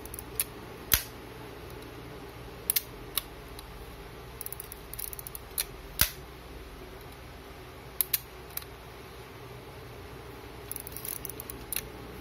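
Agfa Super Silette L vintage 35 mm camera being worked by hand: a series of sharp mechanical clicks from its shutter release and controls. The two loudest clicks come about a second in and about six seconds in, with runs of small quick ticking around five seconds and near the end.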